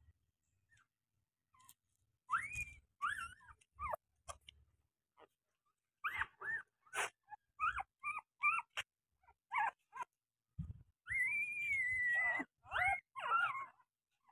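Newborn puppies whimpering: a series of short, squeaky cries that rise and fall in pitch, starting about two seconds in, with one longer drawn-out cry near the end.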